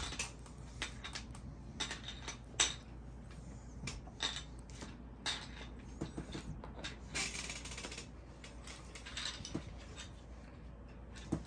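Irregular light clicks and clatter of small plastic train pieces being handled and set on a board-game map, with a brief rustle about seven seconds in.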